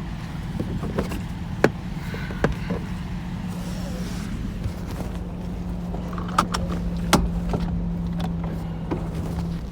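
A steady low motor-vehicle engine hum, with a handful of sharp knocks and taps at irregular moments over it.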